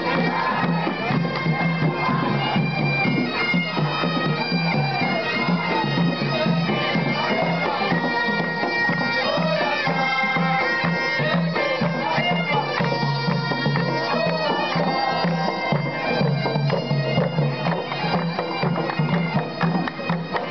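Marching bagpipes playing a tune over their steady drone.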